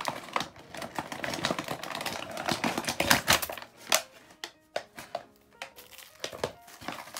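Plastic packaging crinkling, with a quick, irregular run of small clicks and taps as the bags of metal eyelets and snap fasteners from a punch pliers kit are handled; busiest about three seconds in, then sparser.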